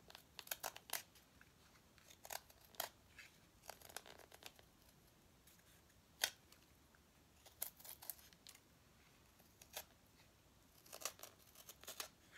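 Sharp knife whittling a laminated wooden propeller blank: short, irregular slicing and shaving cuts, some single and some in quick clusters, with near-silent pauses between strokes.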